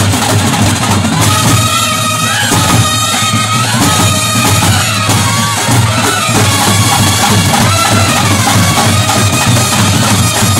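Brass band playing loudly: trumpets and baritone horns play a melody of held notes over continuous snare drumming.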